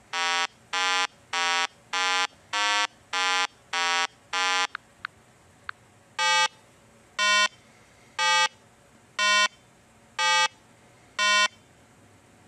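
Electronic video-game-style beeps: eight short buzzy tones about twice a second, shifting a little in pitch, then, after a couple of faint clicks, six longer, lower tones about a second apart.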